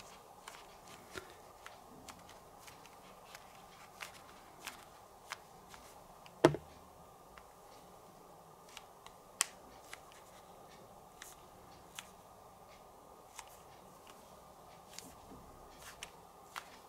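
Light, scattered clicks and taps of plastic headphones being handled and turned over, with one sharper knock about six and a half seconds in, over faint room hiss.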